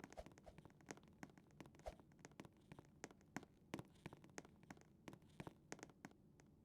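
Faint, irregular small clicks and ticks, several a second, over a low steady hum.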